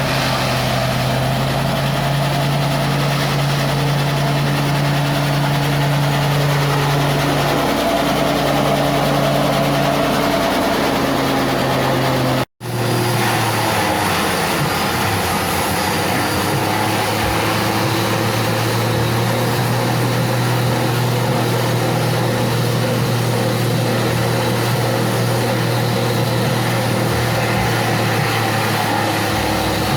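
Engine-driven chopper machine for date palm fronds running steadily. Its pitch dips briefly twice. It cuts out abruptly about twelve seconds in and comes back running at a slightly lower pitch.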